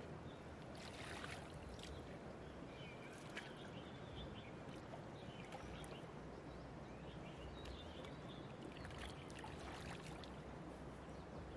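Faint splashing and sloshing of shallow river water, with a few soft clicks scattered through it, over a steady low background hiss.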